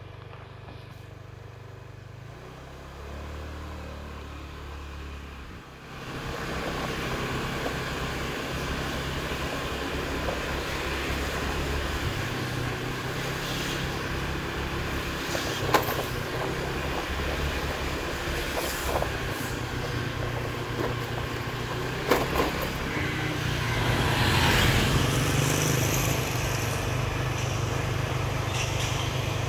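Vehicle and road noise while driving through town streets: a steady low rumble with an even hiss, quieter for the first six seconds or so, then louder, with a couple of short knocks and a louder swell a few seconds from the end.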